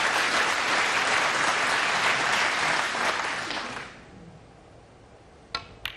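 Audience applauding a snooker century break, fading out about four seconds in. Near the end come two sharp clicks under half a second apart: the cue striking the cue ball, then the cue ball hitting the black.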